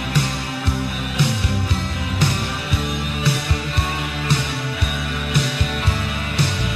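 Recorded rock band playing: drums with a cymbal crash about once a second, over bass and guitar.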